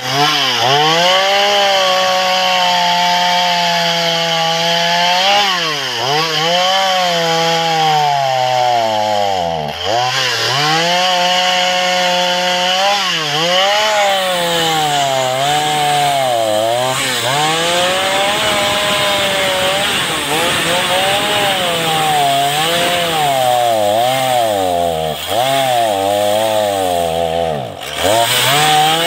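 Husqvarna 236 two-stroke chainsaw cutting through a log at full throttle. Its pitch drops again and again as the chain bogs down under load in the cut, then climbs back each time.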